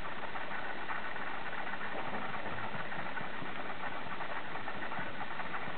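A dog's reverse sneezing: a steady run of hard, snoring-like rattling inhalations with no break. It is a spasm of the throat muscles set off by irritation of the lining above the soft palate.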